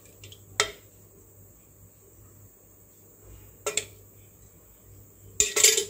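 Kitchen utensils clinking lightly against metal: a single clink, another a few seconds later, then a short cluster of clinks near the end.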